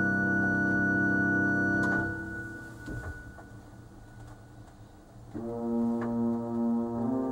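Sauer/Rieger pipe organ holding a full sustained chord that releases about two seconds in, its sound dying away in the cathedral's long reverberation, with a few faint clicks as stop knobs are changed. About five seconds in a softer registration enters with a quieter, slowly pulsing chord.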